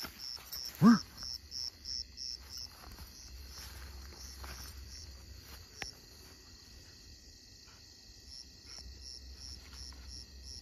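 Crickets chirping in an even pulse of about three chirps a second, stopping a few seconds in and starting again near the end, over faint rustling through grass. About a second in comes one short, loud call that rises and falls in pitch.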